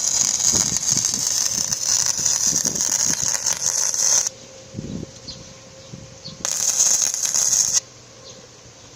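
Electric arc welding on the steel stair stringers: the arc crackles and hisses for about four seconds, stops, then strikes again for a shorter run of just over a second.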